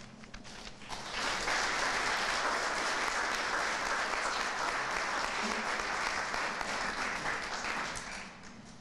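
Audience applauding. The clapping starts about a second in, holds steady and dies away near the end.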